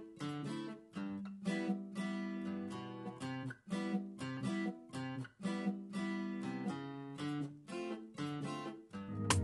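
Quiet background music of a strummed acoustic guitar, chords plucked in a steady rhythm, each dying away before the next.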